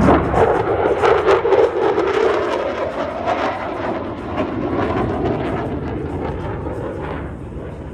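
Lockheed Martin F-35B's Pratt & Whitney F135 jet engine running loud, a rough jet noise with crackle, easing off somewhat near the end.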